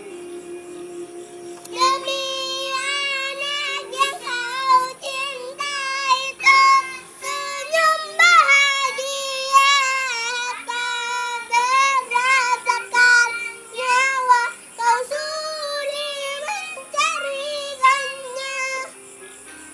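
A young girl singing a melody over a backing music track. Her voice comes in about two seconds in and stops shortly before the end, while the accompaniment plays throughout.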